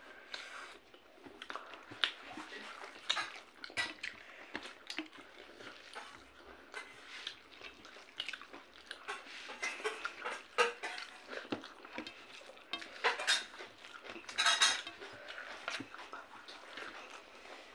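Hand mixing rice and chicken on a plate: scattered small clicks and scrapes of fingers and food against the plate, with a longer scrape about fourteen seconds in.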